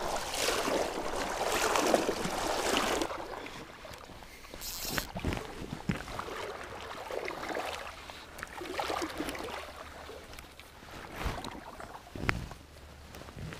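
Water swishing around legs wading through a shallow river, loudest for the first three seconds, then quieter with a few scattered small knocks.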